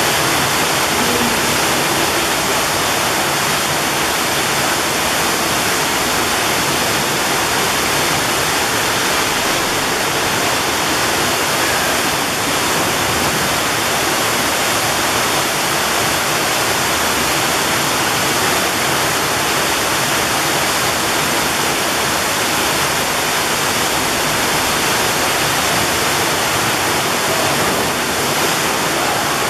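Artificial waterfalls pouring into a rock grotto pool: a loud, steady rush of falling water.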